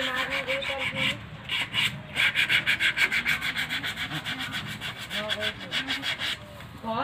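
Wood being worked with a hand tool: rapid, even rasping strokes against the wood, with short breaks about a second in and near the end.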